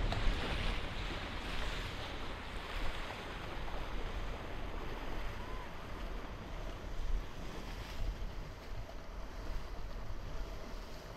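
Whitewater rushing and splashing around a kayak's hull as it runs a river rapid, with wind buffeting the microphone. The water is loudest in the first couple of seconds, then settles to a steady rush.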